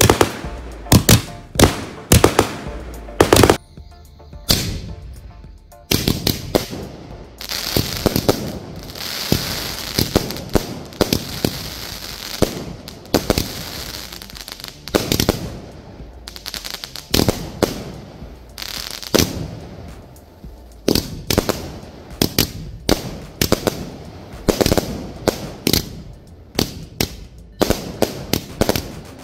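Asok Euphoria 120-shot multi-colour repeater cake firing: a rapid run of sharp launch thumps and aerial bursts, several a second, with a denser, hissing stretch through the middle.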